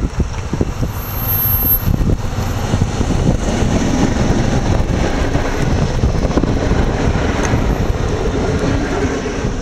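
SM42 diesel shunting locomotive running past, followed by passenger coaches rolling by, their wheels rumbling over the rails with scattered knocks.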